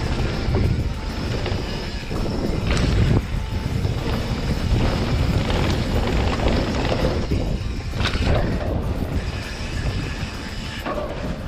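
Mountain bike descending a dry dirt trail at speed: a steady rumble of wind buffeting the camera microphone and tyres on loose dirt, with sharp knocks from the bike hitting bumps about three seconds and eight seconds in.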